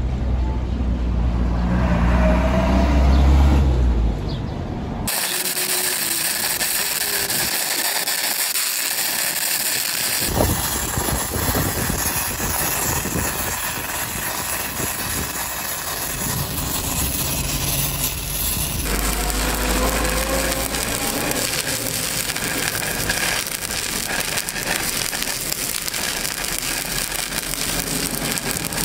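Stick-welding arc crackling steadily as a 6010 electrode lays a root pass on a steel pipe joint, the sound changing at several cuts. A low engine-like hum runs under it in the first few seconds and again about two-thirds of the way through.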